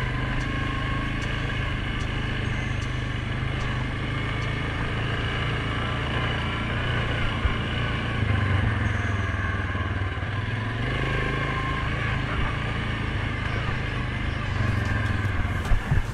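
2019 Suzuki KingQuad 750 ATV's single-cylinder engine running steadily along a dirt trail, its note shifting a little with the throttle a few times. A few sharp knocks come near the end.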